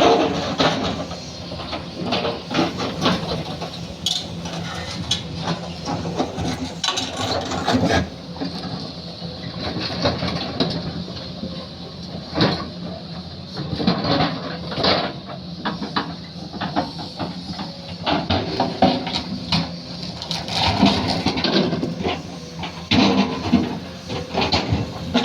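Heavy machinery's diesel engine running steadily, with irregular metal clanks and knocks throughout.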